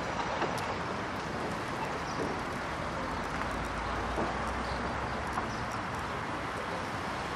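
Renault Trafic van's diesel engine idling with a steady low hum.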